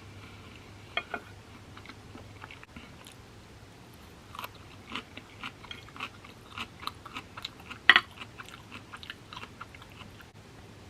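Close-up chewing of a sushi roll: a couple of mouth clicks about a second in, then a steady run of short chewing clicks and smacks from about four seconds, the loudest near eight seconds.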